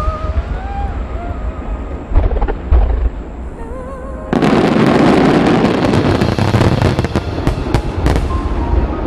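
Fireworks finale: shells bursting with sharp, loud booms about two to three seconds in, then about four seconds in a sudden, dense, continuous crackle as a broad barrage goes off at once.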